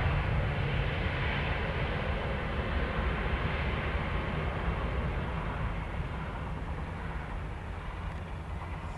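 Jet engines of an Airbus A320 airliner rumbling overhead, with no separate tones, slowly fading as the aircraft moves away.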